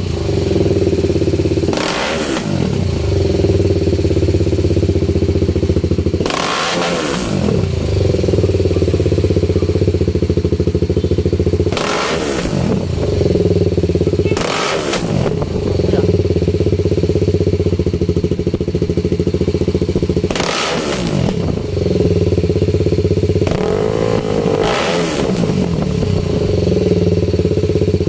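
BMW motorcycle engine idling steadily, with the throttle blipped six times, each rev a quick rise and fall in pitch.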